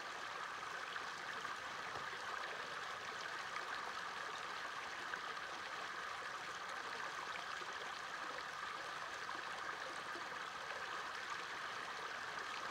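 Small stream flowing steadily, an even rush of water with no breaks.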